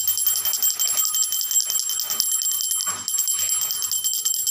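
Hindu temple hand bell (ghanti) rung rapidly and continuously, its clapper striking many times a second, with a bright, high, sustained ring.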